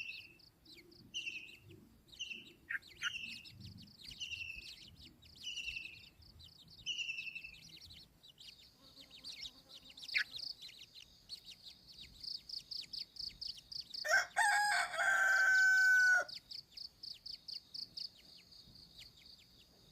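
Small birds chirping: short calls about once a second, then a fast, high, pulsing trill that runs on steadily. About two-thirds of the way through, a rooster crows once, loudly, for about two seconds.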